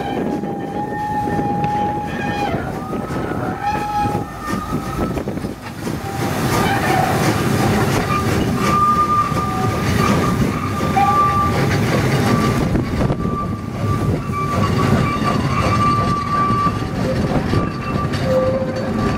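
Narrow-gauge saddle-tank steam locomotive working a train of carriages away, its steam exhaust and running gear growing louder about six seconds in. A thin high-pitched tone rides over it, shifting up in pitch about three seconds in and coming and going through most of the rest.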